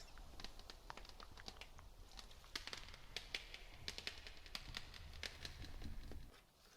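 Close-microphone ASMR trigger sounds: many light, irregular clicks and crinkles over a low rumble that stops near the end.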